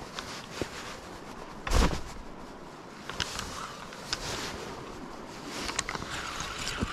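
Steady outdoor background hiss with a heavy bump on the microphone about two seconds in and a few light clicks later on.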